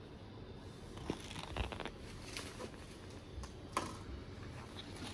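Light rustling and a few soft clicks of a glossy printed catalogue card being handled and bent, the sharpest click nearly four seconds in.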